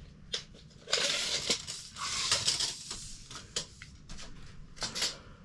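Work handling noises: several sharp clicks and knocks, with a scraping, rustling stretch of about two seconds starting a second in.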